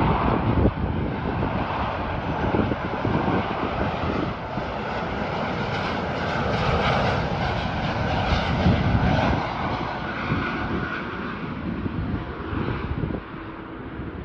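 Jet engine noise of an Airbus A330-300 airliner with Rolls-Royce Trent 700 turbofans coming in to land. The noise swells to its loudest past the middle, then fades toward the end.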